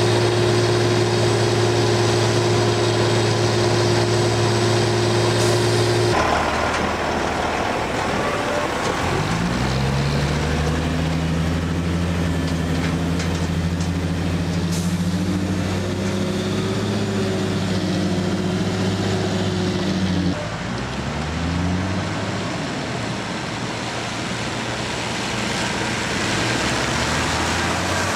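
Heavy diesel engines running steadily, then, after an abrupt change about six seconds in, a logging truck's diesel engine rising in pitch as it pulls away under power, holding steady, dropping sharply about twenty seconds in at a gear change and climbing again.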